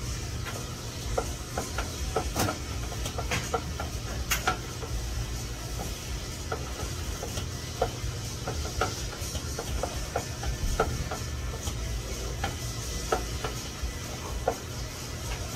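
A utensil clicking and scraping against a mixing bowl at irregular intervals while scone ingredients are stirred.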